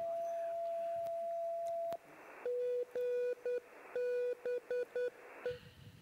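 A 10 GHz amateur radio beacon received through a web SDR in USB mode, heard as a steady whistle tone that stops about two seconds in. Then comes a Morse code ident, a tone keyed in dots and dashes over receiver hiss.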